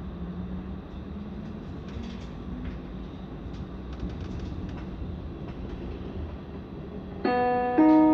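Steady running rumble of a train heard on board, with a few faint clicks. About seven seconds in, the onboard passenger-information chime sounds two electronic notes and rings away, the signal that a next-stop announcement follows.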